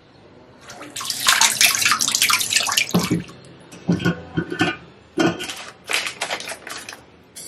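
A plastic packet crinkling and rustling as it is handled and cut open with scissors, first as a dense two-second run of crackle and then in short irregular bursts.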